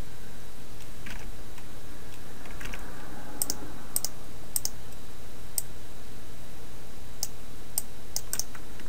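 Scattered short clicks of a computer mouse and keyboard, about eight of them, most in the second half, over a steady low hum.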